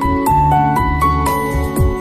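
Background music: a melody of short pitched notes, about four a second, over a steady bass line.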